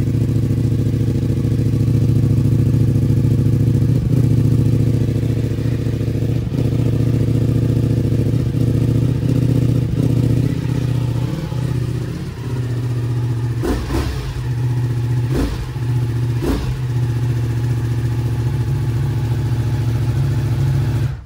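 Ducati Multistrada V4 S's V4 engine, breathing through an aftermarket Akrapovič exhaust, idling steadily on its stand. A few short sharp sounds cut in about two-thirds of the way through.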